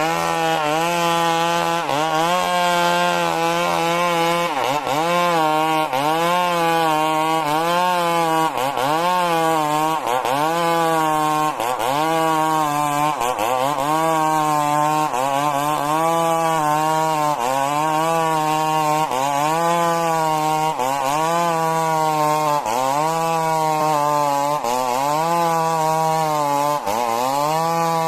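Stihl MS 382 two-stroke chainsaw running at full throttle while ripping a majau log lengthwise. The engine note dips under load and picks back up about every one and a half seconds as the chain is pressed into the cut.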